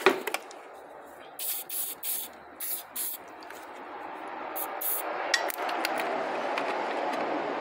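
Aerosol spray can hissing onto a car battery's terminal post: several short squirts, then a longer, steadier spray.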